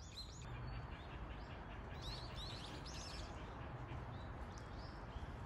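Small birds chirping: a scatter of short, high chirps, busiest about two to three seconds in, over quiet outdoor ambience.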